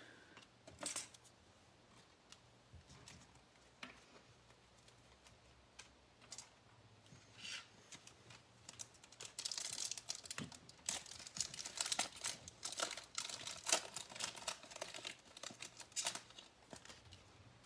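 Baseball card pack wrapper being torn open and crinkled: a few scattered rustles and clicks at first, then dense crinkling from about nine seconds in. Faint throughout.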